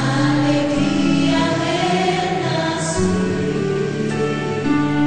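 Gospel song: a choir singing sustained notes over instrumental accompaniment.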